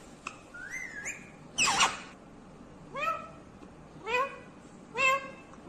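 Ringneck parakeet giving a string of short whistled calls about once a second, each sweeping up in pitch at its start, with one rising whistle about a second in and a louder, harsher call near the two-second mark.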